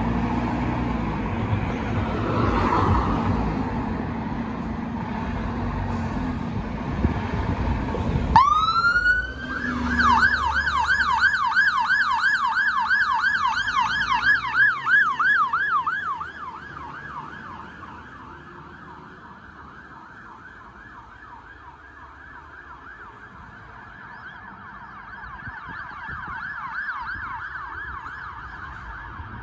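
Fire engine pulling out with its engine running, then its siren winds up about eight seconds in and switches to a fast yelp, sweeping up and down several times a second. The siren is loud until about sixteen seconds in, then carries on more faintly.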